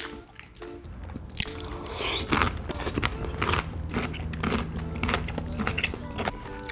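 Crisp cubes of yellow pickled radish (danmuji) bitten and chewed close to the microphone: a run of crunches starting about a second and a half in.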